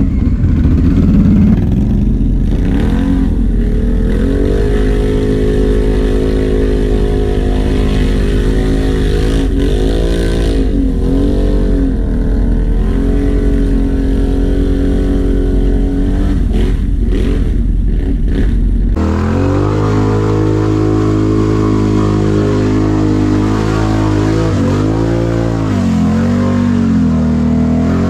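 Can-Am ATV V-twin engine revving up and down under load, its pitch rising and falling in repeated swells. The sound changes abruptly about two-thirds of the way in.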